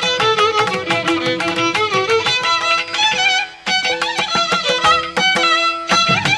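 Instrumental music led by a violin with wavering held notes over a quick, dense beat, breaking off briefly about three and a half seconds in.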